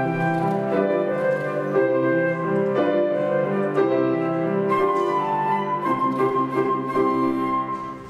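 Flute and grand piano playing a classical piece together. In the last few seconds the flute holds a long high note over the piano, and the piece ends just before the close.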